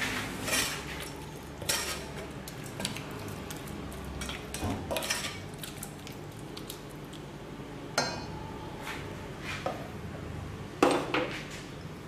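A cooking utensil scraping and knocking against the side of a stainless steel pot as sliced grilled pork is tossed in sauce. The strokes are irregular, with the sharpest knocks near the end.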